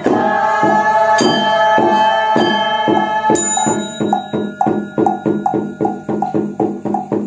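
A wooden fish (temple wood block) struck with a stick in a steady beat that quickens past the middle to about four strokes a second. A bell is struck twice and its ring hangs over the beat.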